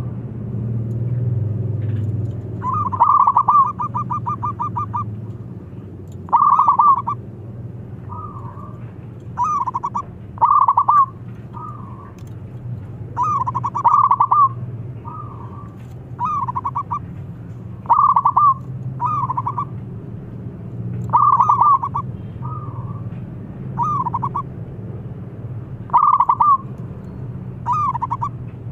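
Zebra dove (perkutut) cooing song: short phrases of rapid trilled coos repeated every one to three seconds, a few of them fainter, over a steady low hum.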